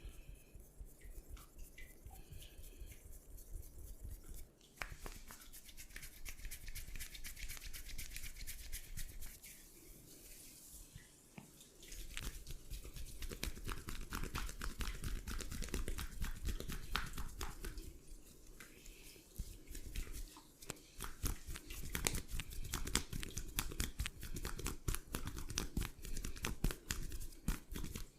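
Massage hands rubbing quickly over skin close to the microphone: a dense, scratchy friction that starts about five seconds in and keeps going, with brief lulls about ten and eighteen seconds in.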